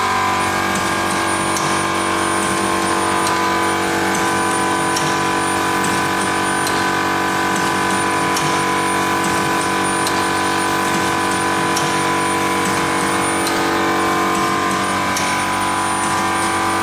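Triangle tea-bag packing machine running: a steady hum of several tones from its drive, with a short sharp stroke repeating about every 1.7 seconds, one per bag cycle at roughly 2000–2400 bags an hour.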